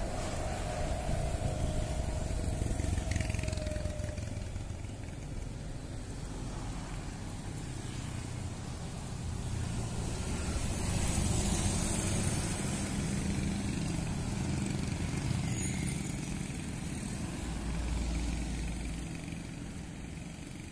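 Two large intercity diesel coaches pass one after the other, their engines running with a low rumble that swells as each goes by, a few seconds in and again around the middle. A thin whine fades out in the first few seconds, and motorcycles run among the traffic.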